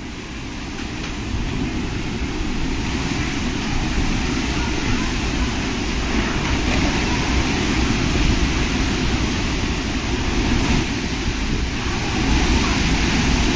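Cyclone winds and driving rain: a loud, steady rushing noise with a deep rumble of wind buffeting the microphone, growing louder over the first two seconds.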